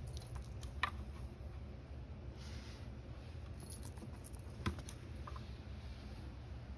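A cat batting a toy mouse across a rug: soft pattering and light taps, with two sharp clicks, one about a second in and one about two-thirds of the way through.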